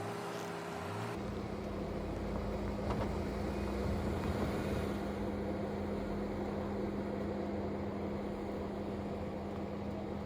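Jeep engine running steadily at low revs while crawling over a rough, rocky off-road trail, with a low rumble underneath. The sound changes abruptly about a second in.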